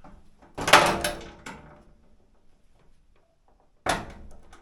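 Handling clatter of metal tools against the dryer's sheet-metal cabinet: a loud rattling clatter about half a second in that fades over a second, then a single sharp knock near the end.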